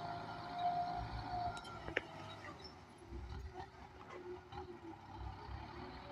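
Kubota M9540 tractor's diesel engine running while ploughing, with a low rumble under a steady high whine. The whine fades about two seconds in, at a single sharp click, and a fainter, lower wavering tone follows.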